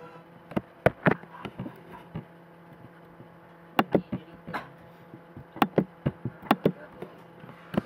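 Computer keyboard keys and mouse buttons clicking, scattered sharp clicks singly and in pairs, as code is copied, a file tab is clicked and the code is pasted. A steady low hum runs underneath.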